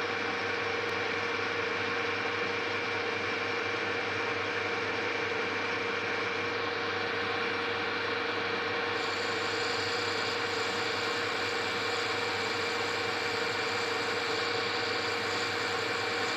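Metal lathe running with a steady whine while its cutting tool turns down a small threaded heatbreak in the chuck, throwing off chips. A brighter hiss joins about nine seconds in.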